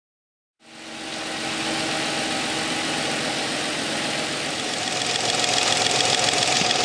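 Nissan Maxima's V6 engine idling, fading in after about half a second, with a fast, even clicking from a fuel injector opening and closing that grows clearer near the end. The clicking is the sign that the injector is firing and spraying fuel into its cylinder.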